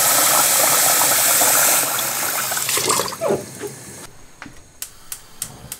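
Tap water running into a stainless steel pot while rice is rinsed in it by hand. The water sound eases off about two seconds in. Near the end comes a run of sharp clicks, about three a second.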